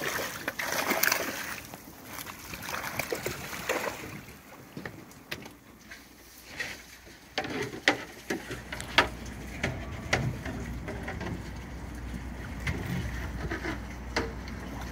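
Large fish splashing and thrashing at the water's surface as they take bait thrown into the water, loudest in the first two seconds. After that the surface goes quieter, with scattered sharp pops and splashes, and a steady low hum comes in about halfway through.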